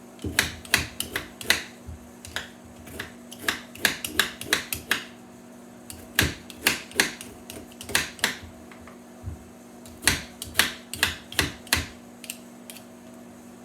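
Quick, sharp strokes of a blade working a raw sweet potato, in bursts of several strokes with short pauses between. A steady low hum of the microwave oven runs underneath.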